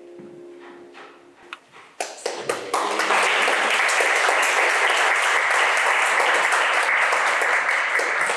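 The last held chord of piano and violin dying away, then a few scattered claps about two seconds in that quickly swell into steady applause from the congregation.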